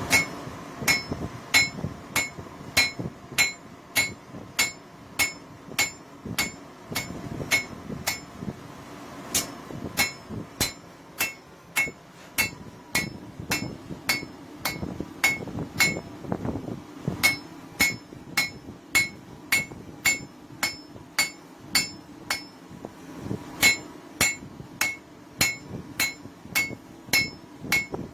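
Hand hammer striking a hot railroad spike on an anvil, steady blows about two a second, each with a bright metallic ring. The hammering stops briefly three times.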